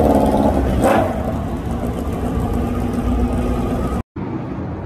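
Motorcycle engine running, loud with a brief rise at first and settling to a lower, steady running sound after about a second. The sound cuts off suddenly near the end.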